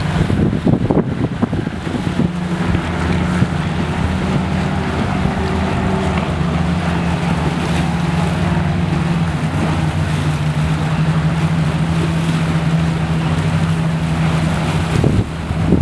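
Steady engine drone with several even tones held at a constant pitch, with gusts of wind buffeting the microphone about a second in and again near the end.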